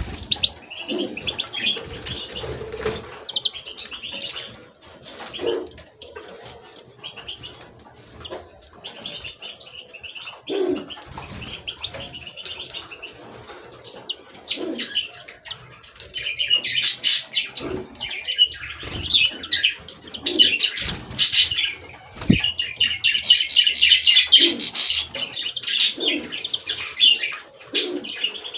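Several caged songbirds chirping and twittering at once, a busy, overlapping chorus that grows louder and denser about halfway through, with short low sounds scattered in between.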